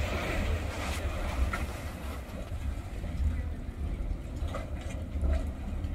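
Dragon's Mouth Spring, a hot spring in a cave, giving off a low, uneven rumble as steam and water surge inside it; the rumble swells and falls every second or so.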